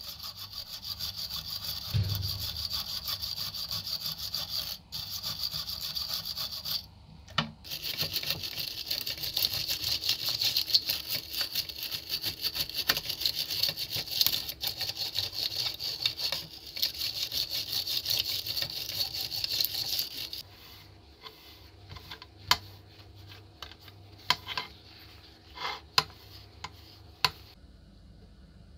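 Wire brush scrubbing rusty cast-metal gun parts in a dish of liquid: fast, rasping back-and-forth strokes with a short pause about seven seconds in. About twenty seconds in, the scrubbing stops and a few sharp metal clicks follow as the gun is worked with a screwdriver.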